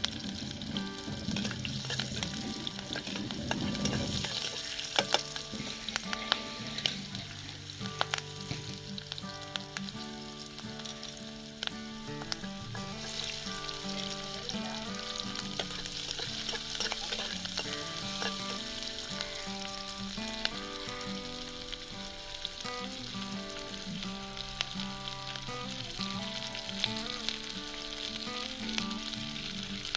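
Food frying in hot oil in a pan, with a steady sizzle and occasional clicks and scrapes of a utensil stirring. Background music with a stepping melody comes in about four seconds in.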